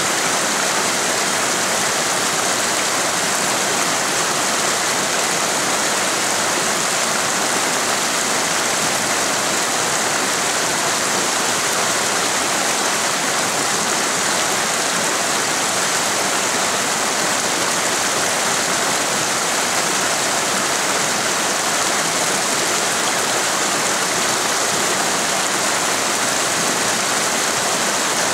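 Mountain creek rushing over boulders: a steady, unbroken wash of water noise.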